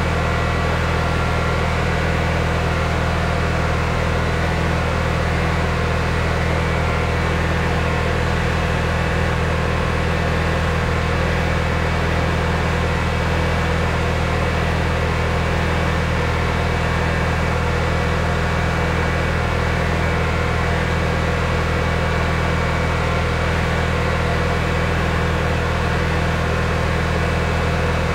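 Pressure washer's engine running steadily at a constant pitch, with an even hiss over it.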